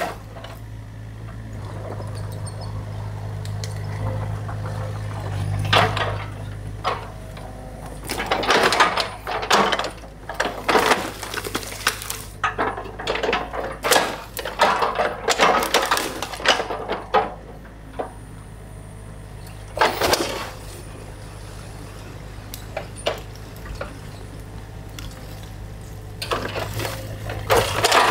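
New Holland excavator's engine running steadily while its bucket tears at a beaver dam, cracking and snapping sticks and knocking against debris in clusters through the middle and again near the end.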